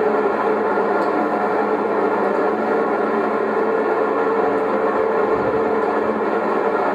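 A steady mechanical whir with a hiss, holding an even level.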